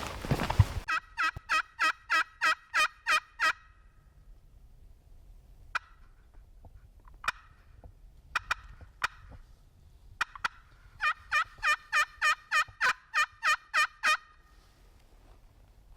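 Turkey yelping: two runs of evenly spaced yelps, about four a second and each a few seconds long, with a few single short notes between them.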